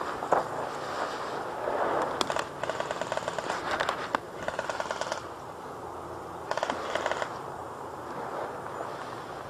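Airsoft gun firing on full auto: a long rapid-fire burst of evenly spaced shots lasting about three seconds, then a second, shorter burst about a second later.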